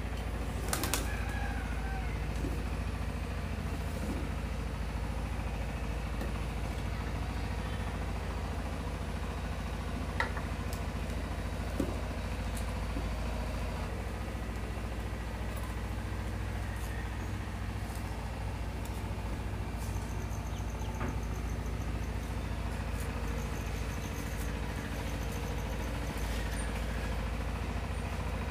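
Steady low rumble, with light scraping and a few faint clicks as pomfret are scaled and cut against a curved iron bonti blade.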